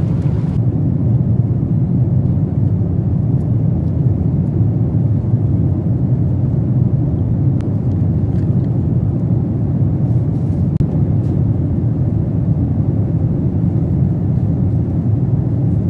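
Steady low roar of an airliner's cabin noise in flight, the engines and airflow heard from a passenger seat. A few faint clicks sound over it.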